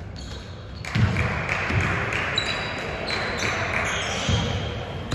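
A basketball bouncing on a gym floor: a few separate thuds, the first about a second in and another near four seconds, echoing in the hall over a steady background of game noise.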